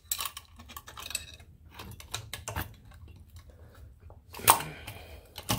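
Scattered small metal clicks and clinks as a Barry Grant Speed Demon carburetor is shifted and fitted down over its mounting studs onto the adapter plate, with a couple of louder knocks near the end as it seats.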